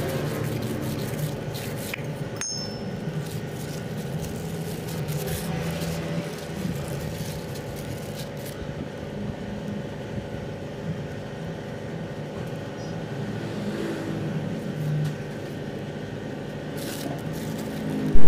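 Scraping and rubbing of hands on a plastic sheet as lead-oxide paste is pressed into a battery plate grid, over a steady low drone.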